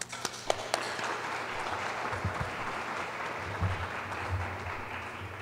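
Audience applauding steadily, beginning with a few separate claps.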